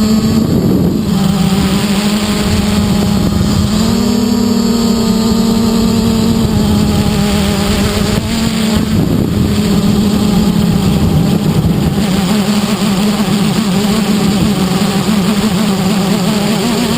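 A 330-size quadcopter's motors and propellers whining steadily, heard from the GoPro on board, the pitch dipping and rising as the throttle changes: it dips about a second in and again near nine seconds, and steps up about four seconds in. Wind buffets the microphone with a low rumble underneath.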